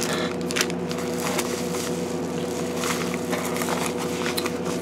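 Clear plastic packaging crinkling and rustling as it is handled, in irregular crackles, over a steady background hum.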